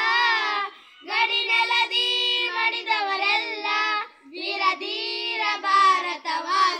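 Young schoolchildren singing a Kannada patriotic song together, unaccompanied. The phrases break briefly about a second in and again about four seconds in.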